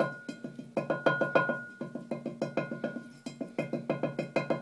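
Background music: a quick run of short plucked or struck notes, each fading fast, over a steady high held tone.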